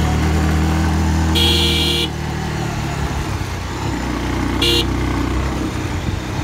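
Motorcycle engine running steadily at a low pitch, with a horn beeping twice: a half-second beep about one and a half seconds in and a short beep near five seconds.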